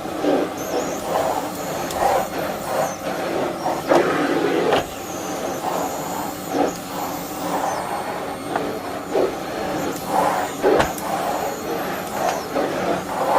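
Bosch Serie 2 bagless vacuum cleaner running with a steady motor hum and airflow, the sound swelling and dropping irregularly as it is used.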